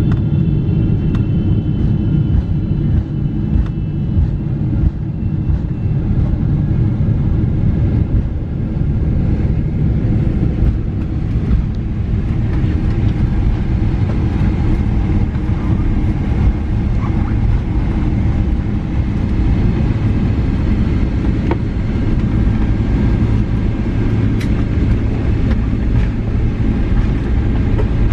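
Cabin noise aboard a Boeing 777-300ER airliner: a loud, steady low rumble of engines and airflow, with occasional faint clicks and rattles.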